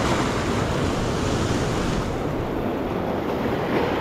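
Ocean surf breaking and washing over jetty rocks in a steady rush, with wind buffeting the microphone.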